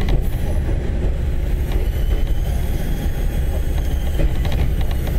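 Running noise inside a KiHa 30/KiHa 37 diesel railcar set moving along the line: a steady low rumble from the engines and running gear, with a few clicks of the wheels over rail joints, a cluster of them about four seconds in.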